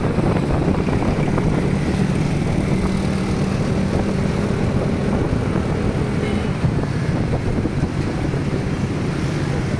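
Steady engine hum and road noise heard from inside a moving vehicle driving through city traffic.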